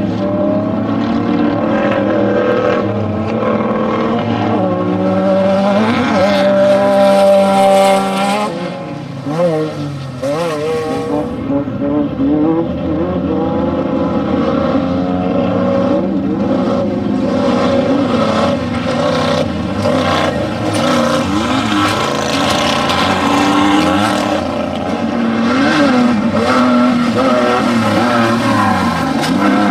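Off-road desert race vehicles running hard, their engines revving up and down through the gears. The pitch climbs and falls throughout, with a brief drop in loudness about nine seconds in.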